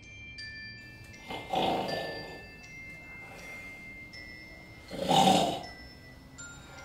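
A sleeping man snoring loudly, two long rough snores about three and a half seconds apart, over soft tinkling glockenspiel-like music.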